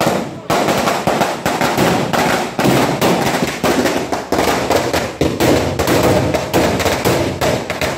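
Firecrackers going off on the ground in a continuous rapid volley, sharp bangs several times a second without a break.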